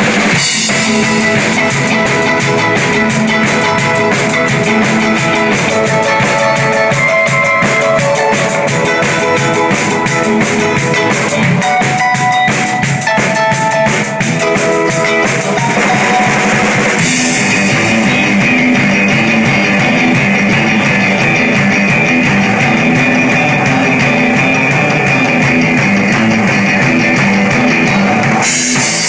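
Live instrumental rock from a trio of electric bass, electric guitar and drum kit, played loud with busy drumming and cymbals. About halfway through the band moves into a new section where the drumming turns to a smoother cymbal wash, and the busier hitting comes back near the end.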